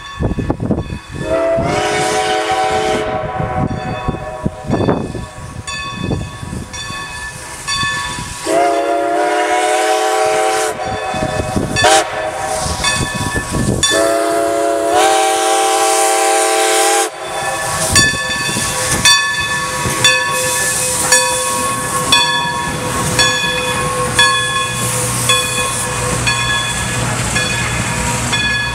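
Steam locomotive whistle blowing the grade-crossing signal: long, long, short, long. A crossing bell rings steadily underneath, and in the second half the locomotive and passenger coaches rumble past over the crossing.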